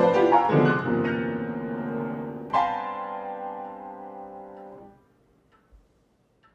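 Upright piano played: a few notes, then a chord struck about two and a half seconds in that rings and fades until it is cut off suddenly near five seconds. After that, a clock ticking faintly about once a second.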